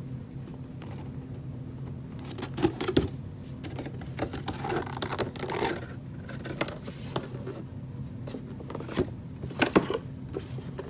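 Unboxing by hand: cardboard box and packaging handled and a plastic toy car set down, giving scattered clicks, taps and rustles, with the loudest knocks about three seconds in and near the end. A steady low hum runs underneath.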